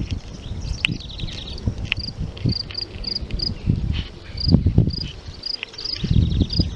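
Insect chirping steadily in summer grassland: short high chirps, about two to three a second. Under it are low rumbling bursts of noise from the walking, handheld camera, loudest around the middle and near the end.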